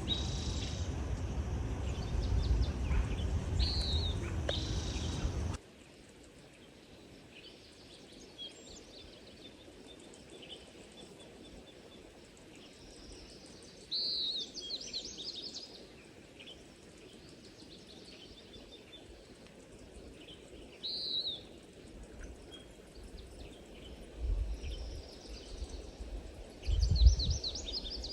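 Small birds calling and chirping over a quiet outdoor background, with short clusters of calls that come back several times. For about the first five seconds a louder low rumbling noise covers everything, then cuts off abruptly; a couple of low thumps come near the end.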